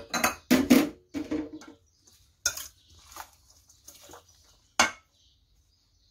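Metal spoon clanking and scraping against a stainless steel mixing bowl as a noodle salad is tossed: a run of irregular sharp clanks, loudest in the first second and again near five seconds in.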